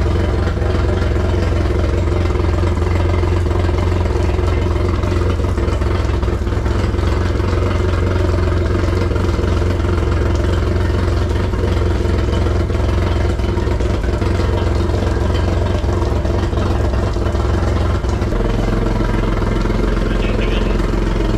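Outboard motor idling steadily while being flushed with fresh water through a hose-fed flushing muff on the gearcase intake; its low note shifts slightly near the end.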